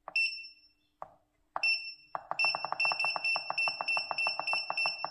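Front-panel push buttons of an 8586D soldering station clicking, each press answered by a short high beep. There is a single press at the start and another about a second and a half in, then a fast run of presses and beeps from about two seconds in, stepping the iron's set temperature up.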